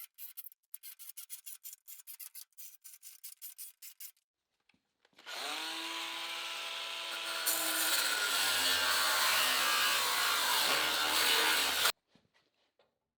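A run of quick light clicks, then a handheld power tool spins up with a rising whine. It goes louder and noisier as it works under load, then stops suddenly.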